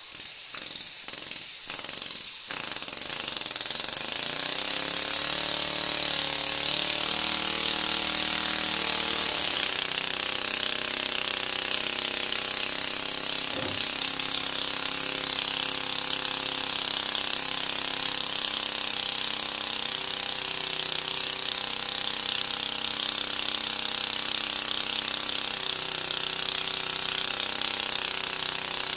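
Miniature two-stroke piston engine running on gas from subliming dry ice. It gives a few separate puffs, catches about two seconds in, speeds up over the next several seconds, then runs steadily with a rapid buzzing rattle and a strong hiss of escaping gas.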